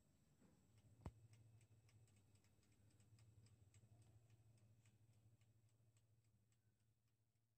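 Near silence. Faint mechanical ticking, about three ticks a second, runs over a low steady hum, with one sharp click about a second in.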